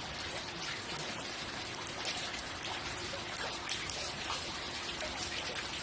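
Steady rain falling, with many separate small drop hits through it.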